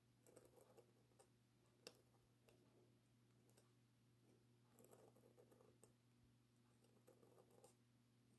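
Faint scratching and small clicks of a metal calligraphy pen nib on paper, in a few short bursts of strokes, over a steady low hum.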